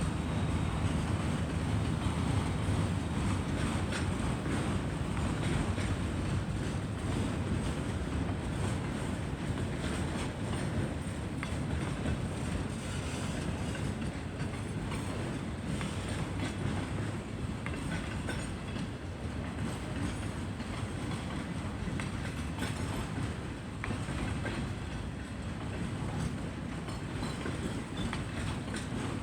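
CN freight train cars rolling past in a steady rumble, with faint clicks from the wheels on the rails.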